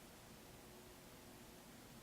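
Near silence: room tone of steady low hiss with a faint steady hum. No tap or knock is heard.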